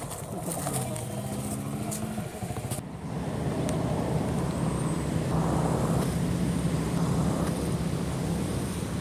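A motor vehicle's engine running close by, its pitch stepping up over the first two seconds, then louder and steady from about three seconds in.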